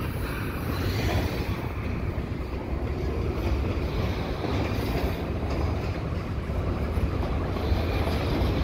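Double-stack intermodal well cars rolling past, with a steady noise of steel wheels running on the rails.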